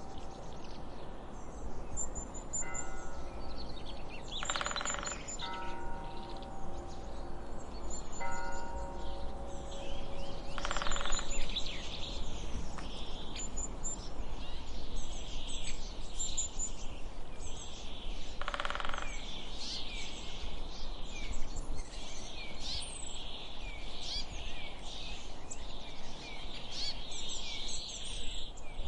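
A church bell tolls slowly, about one stroke every three seconds; three strokes fall in the first nine seconds, each ringing on and fading, and then the bell stops. Songbirds chirp and twitter throughout, growing busier near the end, over a steady low background noise, with a few brief louder sounds at about 5, 11 and 19 seconds.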